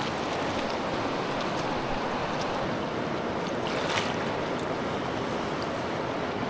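Backcountry river water rushing steadily, with a brief sharp sound about four seconds in.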